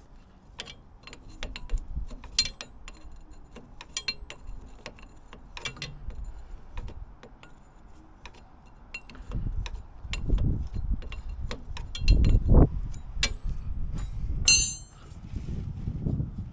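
Scattered metallic clinks and taps as metal parts and tools are handled during hydraulic teardown, with low rumbling thuds in the second half and one bright ringing clink near the end.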